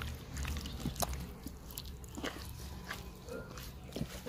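A hand squeezing and turning fish pieces in a thick, wet marinade of yogurt, lemon juice and ground spices in a clay bowl: scattered soft squelches and clicks.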